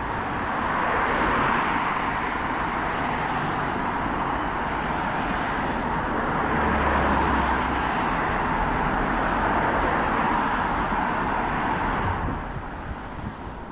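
Road traffic passing close by: a steady rush of car tyres and engines that swells and eases as vehicles go past, then drops off near the end.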